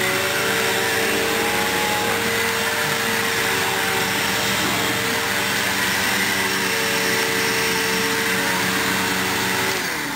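Vacuum cleaner running steadily across carpet with a constant motor whine, then switched off and winding down, its pitch falling, near the end.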